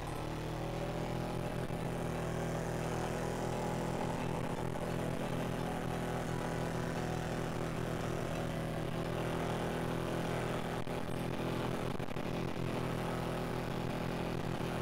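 Dune buggy engine running at a fairly steady speed, its pitch rising a little just after the start.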